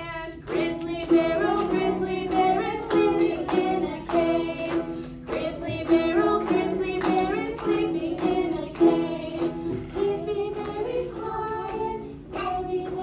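Young children and a woman singing a simple children's song together, accompanied by a strummed ukulele.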